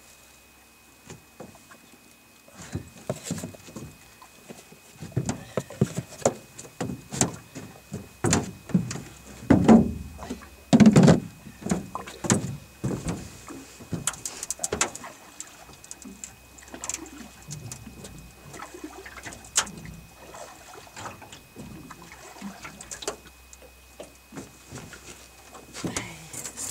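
Irregular knocks, clunks and thumps on a small boat's hull as someone moves about and handles things in it; the loudest come in a cluster about ten seconds in.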